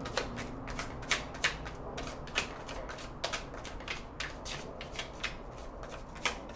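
A tarot deck being shuffled by hand: a steady run of light, irregular card slaps and flicks, several a second.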